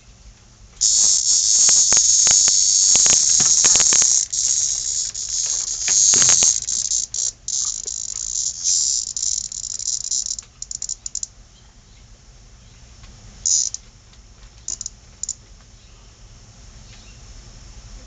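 A caught cicada buzzing loudly, the typical distress buzz of a handled cicada: a harsh, high buzz that stutters and breaks off about ten seconds in. Several sharp clicks sound in the first few seconds, and a few short buzzes follow later.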